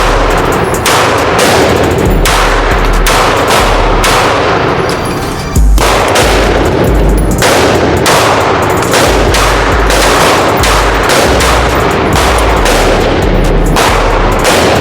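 Handgun shots fired one after another in quick succession through a timed drill, each a sharp crack.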